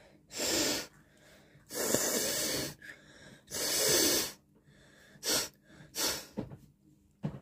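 A person forcing air hard through the nose in a series of noisy bursts: three longer ones of up to about a second each, then three short ones.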